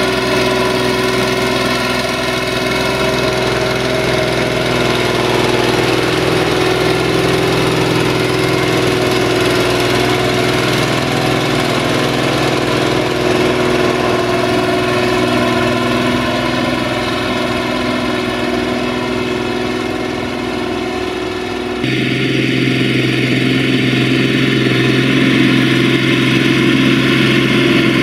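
FIAT 1380 DT tractor's six-cylinder diesel engine running steadily under load while pulling a plough through wet, heavy soil. About three-quarters of the way through, the sound switches abruptly to a slightly louder, deeper-sounding take of the same engine.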